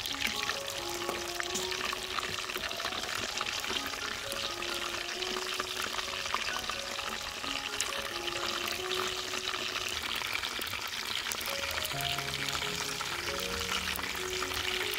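Whole catfish deep-frying in a wok of hot oil: a steady sizzle full of fine crackles and popping bubbles. Light background music with a simple melody plays under it.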